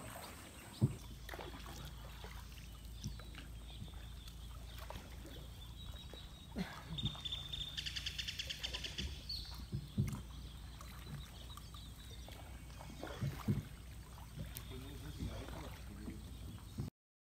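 Canoe paddles dipping and stroking through calm canal water, with a few sharp knocks of paddle against the canoe's hull, over a steady low rumble. A short, rapid high trill sounds about eight seconds in.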